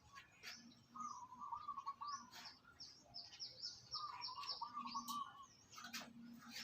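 Birds singing outdoors: a warbling phrase comes twice, with quick high chirps between and after. A few soft clicks are also heard.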